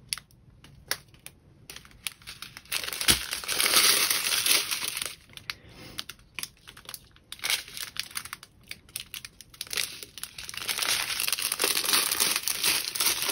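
Small plastic bags of diamond-painting drills crinkling as they are handled and sorted, louder about three seconds in and again near the end, with lighter rustling and small clicks between.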